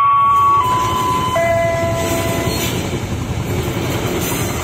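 Loaded coal hopper wagons of a Babaranjang freight train rolling past close by, a steady loud rumble and clatter of wheels on rail. Over it a high, clear tone holds and jumps to a new pitch several times, lower for the second half.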